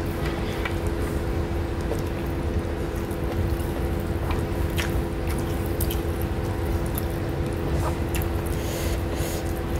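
Close-up eating sounds from eating rice and fish by hand: wet squishing and chewing, with scattered small clicks, over a steady low hum.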